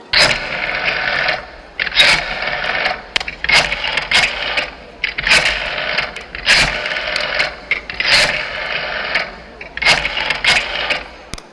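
Telephone bell ringing in repeated bursts of about a second each, with short irregular gaps between them, as a sound effect in the routine's soundtrack.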